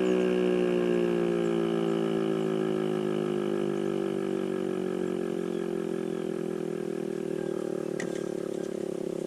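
American Signal ASC T-121 outdoor warning siren winding down after its one-minute alert: one steady siren tone slides slowly lower in pitch and fades, pulsing slightly as it slows. A brief click comes near the end.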